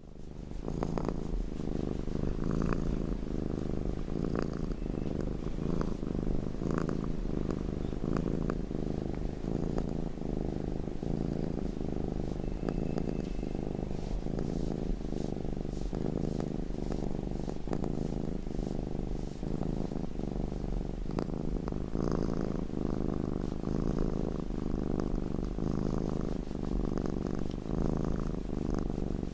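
Domestic cat purring steadily while being petted, a continuous low rumble with a regular pulse.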